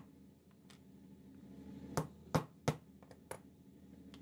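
Small hammer tapping a metal insert into a 3D-printed plastic part: three sharp taps about a third of a second apart about two seconds in, then a lighter tap.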